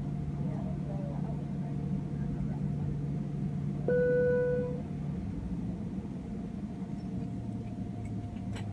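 Airbus A320 cabin hum while the jet taxis: the steady low drone of the engines and air system, whose note drops lower about five seconds in. About four seconds in a single steady tone sounds for about a second, the loudest sound.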